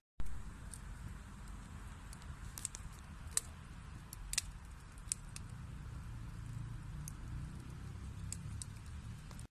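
Wood fire burning in a fireplace: a steady low rumble of flames with scattered sharp crackles and pops from the burning logs, the loudest pop about four seconds in.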